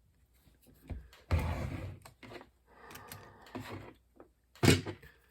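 Handling noises from the small metal and plastic floppy drive mechanism on the bench: clicks, a stretch of scraping and rustling about a second in, and a sharp knock near the end.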